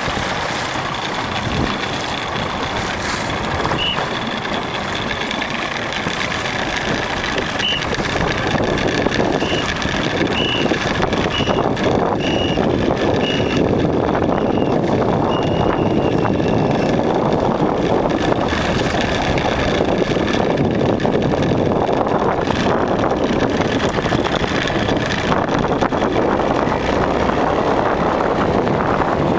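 Steady wind rushing on the microphone over choppy water. Short electronic beeps sound through it, one about 4 s in and another near 8 s, then quickening from about 9 s to 15 s and ending in one longer beep: a start-timer countdown to a sailing race start.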